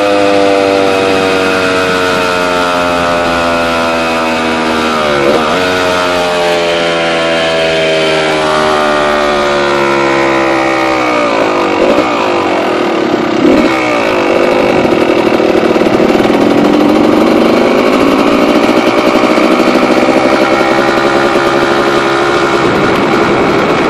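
Quad (ATV) engine running at high revs, its pitch sliding slowly down over the first ten seconds or so with a brief break about five seconds in. After a short stutter around twelve to fourteen seconds, it runs louder and rougher to the end.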